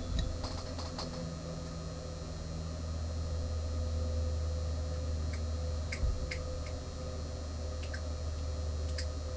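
Steady low electrical hum with a faint steady tone, and a few faint short clicks in the second half.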